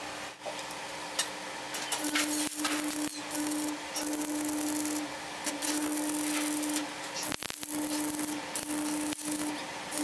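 Electric arc welding done in short runs: a crackling sizzle with a steady hum from the welding machine under load, stopping and restarting about eight times.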